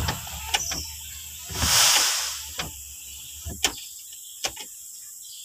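Several light clicks from a vehicle's steering-column wiper switch being worked, with one brief hissing swoosh about two seconds in, while the repaired wiper circuit is tested.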